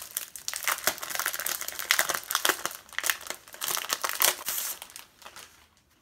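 Clear plastic packaging around a pack of scrapbook paper crinkling as it is handled and turned over, a dense run of crackles that dies away near the end.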